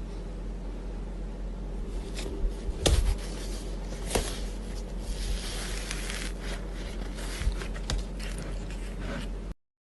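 Hands handling slime: soft scraping and squishing with a few sharp clicks, over a steady low hum. The sound cuts out abruptly near the end.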